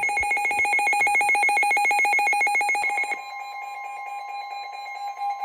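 Weather radio alarm sounding for a tornado warning: a rapid, even beeping for about three seconds, then a steady, quieter alert tone.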